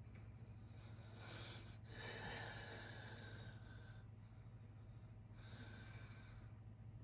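A sleeping man's faint snoring breaths: a short one about a second in, a longer one from about two to four seconds, and another near six seconds, over a steady low hum.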